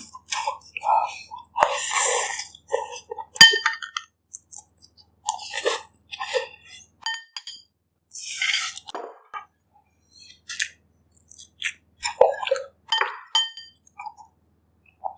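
Close-miked eating of bak kut teh pork ribs and broth: irregular chewing and mouth sounds between clinks of a utensil against a bowl. A few of the clinks ring briefly, the clearest about three and a half seconds in.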